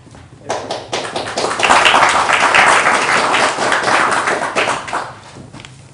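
Audience applauding. The clapping starts about half a second in, swells to its loudest in the middle and dies away near the end.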